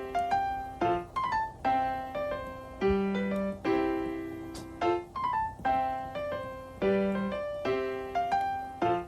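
Piano music: a slow tune of struck notes and chords, each one fading away after it starts.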